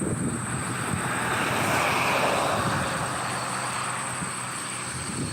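A vehicle passing by: a rushing noise that swells to its loudest about two seconds in, then fades away.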